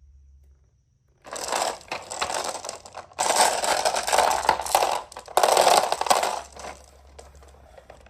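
Marbles clattering and rolling down a wooden marble run, starting about a second in, loudest in the middle with a brief break, then thinning out to a light rattle near the end.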